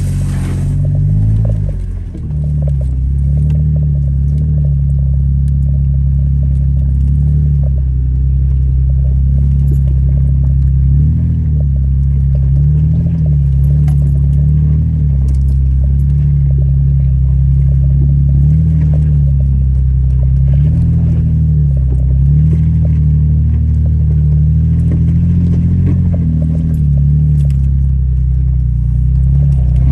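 Toyota FJ Cruiser's 4.0-litre V6 engine running at low, steady revs under load as the 4WD crawls up a steep, rutted dirt hill, heard from inside the cabin. The pitch rises and dips slightly now and then, with light rattling and clattering from the vehicle over the bumps.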